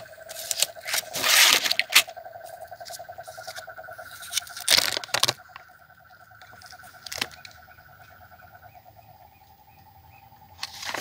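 Steady buzzing hum of stingless bees in an opened hive box, broken by loud rustling and scraping handling noises about one to two seconds in and again around five seconds.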